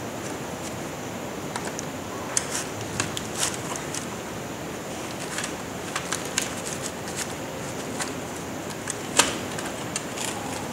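Scattered plastic clicks and taps as a charging roller is fitted into a Kyocera TaskAlfa 1800 drum unit housing, the loudest click about nine seconds in, over a steady background hiss.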